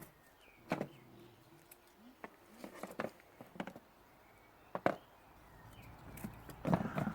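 Wooden sticks being laid down one by one: a few separate sharp knocks and clicks spread through the pause, with a cluster of them near the end.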